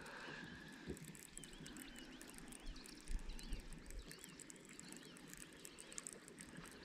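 Faint bird calls: a run of short chirps, each rising and falling in pitch, about two a second, over quiet lakeside ambience.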